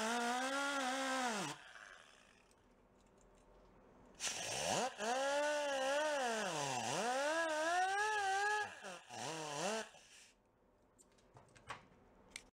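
Hand-held cordless power tool on the flywheel centre of a small motorcycle engine, running in three bursts, the first two long and the last short, its motor pitch rising and falling as the trigger is eased, as it works the flywheel off. A few faint clicks follow near the end.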